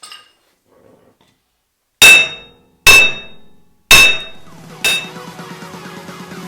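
Four hard hammer blows on metal, about a second apart, each ringing briefly; the last is weaker. Electronic dance music with a steady beat starts right after.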